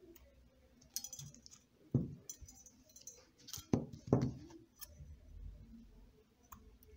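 Metal scissors snipping clear beading thread and being handled and set down on the table: a string of separate sharp clicks and light clinks, about half a dozen in all.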